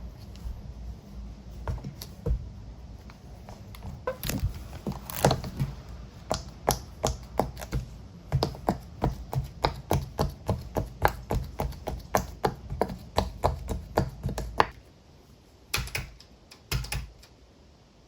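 Silicone push-pop fidget toy shaped like a computer keyboard, its bubbles pressed one after another in a quick run of sharp clicking pops, about three or four a second, that stops abruptly about fifteen seconds in, followed by a few single pops.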